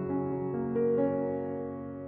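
Soft instrumental background music led by piano, with notes struck one after another.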